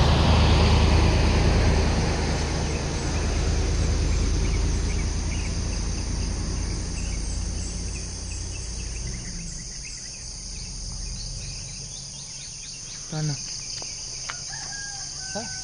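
Insects chirring steadily, with rapid ticking chirps and scattered short bird calls. A low rumble, loud at first, fades away over the first several seconds.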